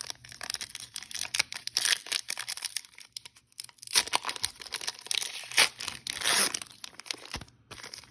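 Crinkling and tearing of trading-card packaging, mixed with the rustle of cards being handled: a string of sharp crackles and rustles, the longest about six seconds in.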